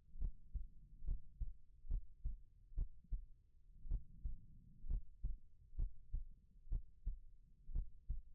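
Human heartbeat, slow and steady at a little under one beat a second, each beat a double 'lub-dub' pulse, over a faint low rumble.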